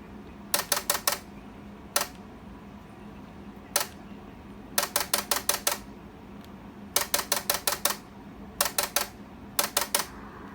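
ICOM IC-720A's rotary band-switching relay clicking as the bands are changed: quick runs of sharp clicks, several a second, with single clicks between the runs. This clatter is normal for this rig.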